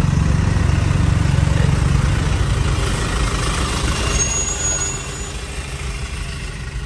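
Heavy diesel engine idling steadily, a low rumbling hum that grows quieter in the second half.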